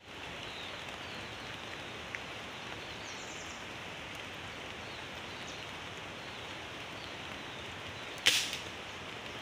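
A single sharp shot from a VX100 air rifle about eight seconds in, with a short fading tail, over a steady hiss of forest ambience.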